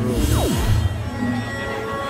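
Music with a steep electronic downward sweep in the first half-second, followed by sustained held notes.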